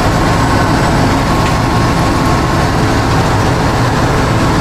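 Combine harvester's diesel engine running steadily at a constant speed, its threshing unit switched off.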